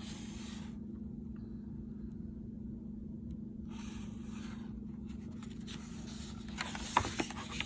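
Picture-book pages being handled and turned: soft paper sliding and rustling just after the start and again about four seconds in, then a few sharp paper clicks and scrapes near the end, over a steady low hum.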